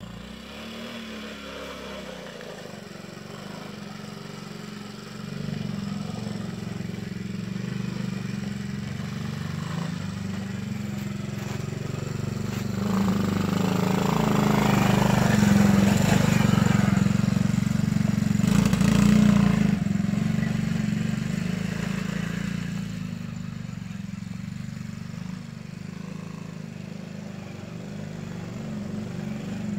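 Small engine of a children's mini ATV running as the quad is ridden, a steady drone. It grows louder as the quad comes close, loudest around the middle, and fades as it moves away.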